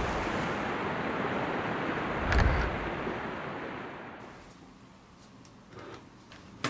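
Steady rushing outdoor ambience of surf and wind, with a low whoosh about two and a half seconds in. It fades out after about four seconds, leaving faint clicks near the end.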